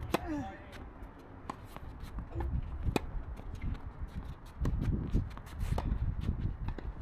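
Tennis ball being struck with rackets in a doubles rally: a sharp serve hit just after the start, then a string of crisp racket hits and ball bounces over the following seconds.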